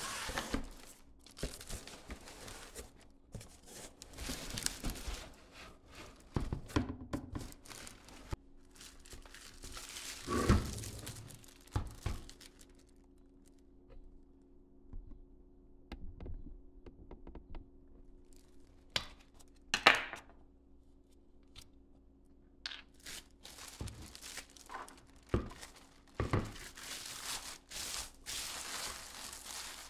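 Plastic wrapping crinkling and tearing and a cardboard box rustling as a new reverse osmosis pressure tank is unpacked by hand, in irregular stretches with a few sharp knocks, the loudest about ten and twenty seconds in.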